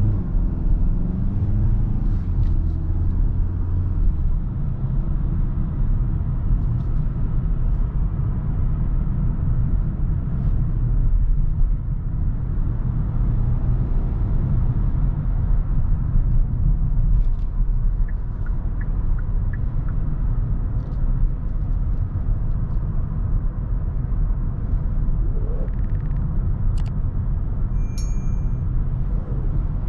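Kia Sorento's 2.2 CRDi diesel and road rumble while driving, the engine note rising in the first few seconds as the car accelerates. A short electronic beep sounds near the end.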